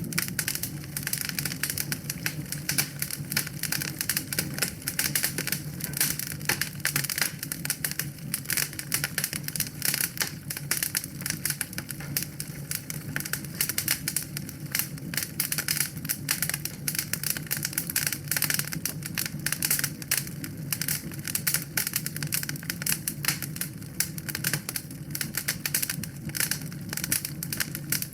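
Wood fire in a fireplace crackling, with dense, rapid, irregular pops and snaps over a low steady hum.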